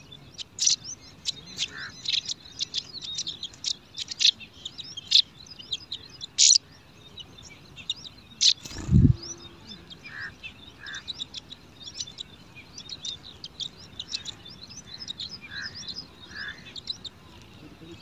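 Brown prinias at the nest: a steady stream of short, high chirps, with a few lower call notes in the second half. A single loud low thump about nine seconds in.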